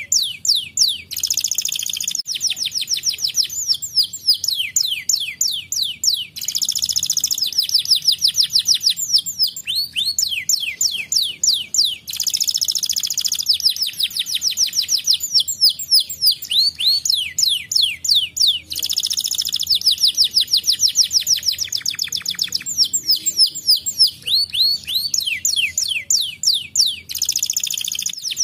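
Domestic canary singing a long, unbroken song: fast runs of chirps that sweep down in pitch, broken every few seconds by dense rolling trills.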